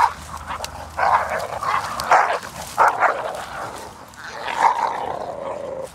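A Jagdterrier and a pit bull fighting: barking and snarling in short loud bursts, about six of them.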